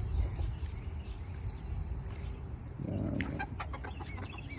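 Chickens clucking and peeping over a steady low background noise, busiest about three seconds in.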